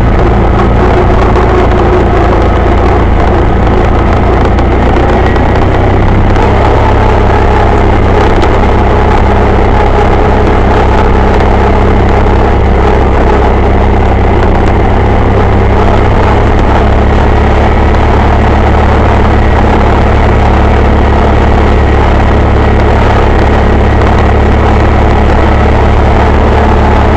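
John Deere 318 garden tractor's air-cooled Onan two-cylinder engine running loud and steady as the tractor drives along, still warming after a cold start.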